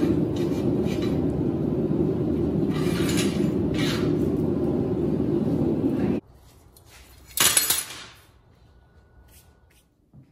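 Gloved hands scraping and brushing a freshly forged steel scroll on a steel work table over a loud, steady shop roar, with a couple of louder scrapes; the roar cuts off abruptly about six seconds in. A second or so later comes a short, loud metallic clank.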